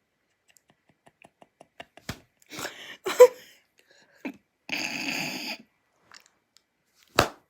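A person laughing hard in near-silent fits: a snorting burst about three seconds in, a wheezing breath lasting about a second in the middle, and two sharp slaps, one about two seconds in and one near the end.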